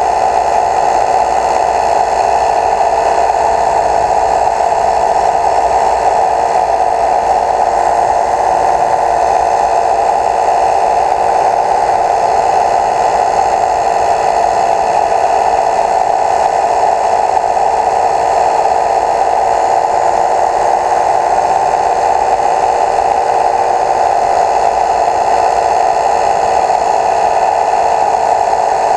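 Steady whirring of a small motor, unchanging in pitch and level.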